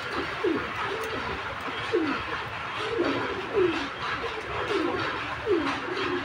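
Domestic pigeons cooing: a run of low coos, each sliding downward in pitch, about one a second and sometimes overlapping.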